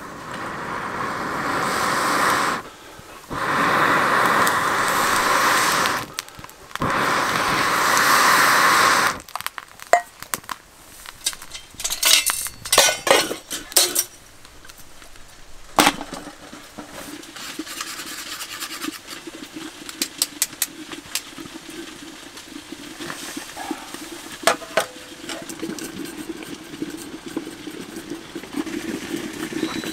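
Three long blows of air through a metal blow-pipe into a small wood fire, each a rush of air a few seconds long with a short pause between. Then metal clanks and clinks as a stainless chimney kettle is set over the fire pot, followed by the low steady rush of the burning fire with scattered crackles.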